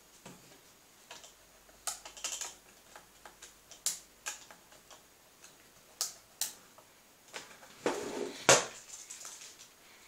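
Irregular clicks and knocks of airsoft guns being handled, with a longer, louder clatter about eight seconds in.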